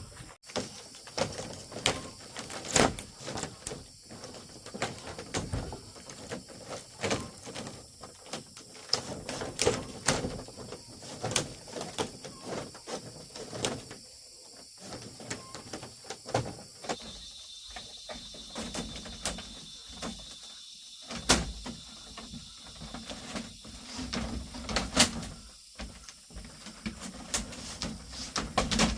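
Irregular knocks and clatters, some sharp and loud, over a steady high hiss; a thin high tone holds for a few seconds midway.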